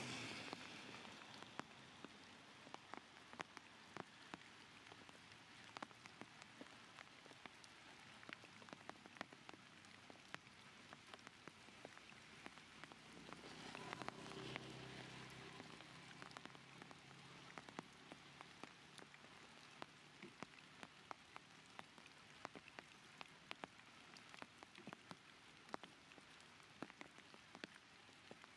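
Raindrops falling on surfaces after rain: a faint, steady hiss with many irregular sharp ticks of single drops, and a brief louder swell about halfway through.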